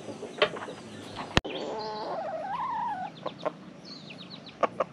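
Rooster crowing once. The call lasts about a second and a half, rises and then falls in pitch, and is followed by a few short clicks.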